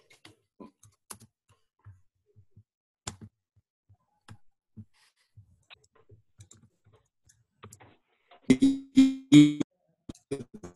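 Faint, scattered clicking of a computer keyboard and mouse over a video-call line. Near the end come three short, loud pitched sounds about half a second apart.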